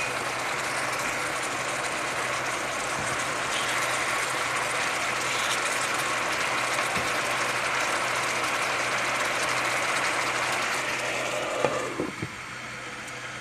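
Apple slices sizzling and bubbling in coconut oil and maple syrup in a frying pan, a steady crackling hiss. Near the end a glass lid clatters onto the pan and the sizzle drops to a quieter, muffled level.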